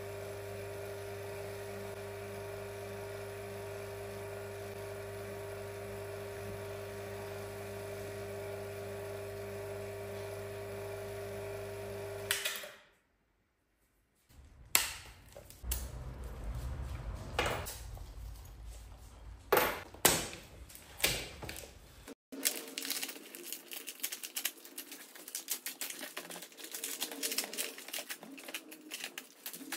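Electric vacuum pump running with a steady hum, pulling vacuum on a resin-infusion bag over a carbon fiber layup. After a sudden break about twelve seconds in, plastic vacuum bagging and tape crinkle and crackle as they are pulled off the part.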